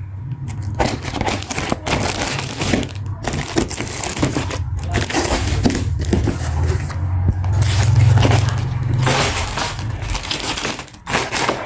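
Grocery delivery packaging being opened and handled: continuous irregular crinkling and crackling of box and plastic wrappers, over a low hum.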